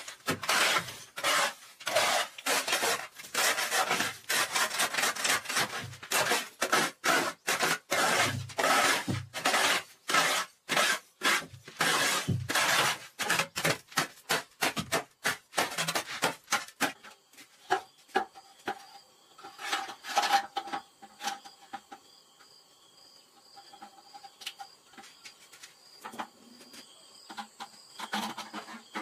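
Shovel blade scraping broken brick and grit across a concrete floor in quick repeated strokes, about two a second. About seventeen seconds in it becomes sparse, with only a few scrapes over steady high-pitched insect calls.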